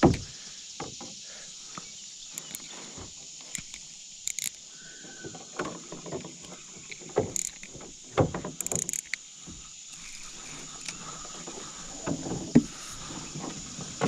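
Irregular knocks and bumps on a canoe hull, from the angler shifting about and handling rod and paddle while a hooked carp pulls the canoe, over a steady high hiss.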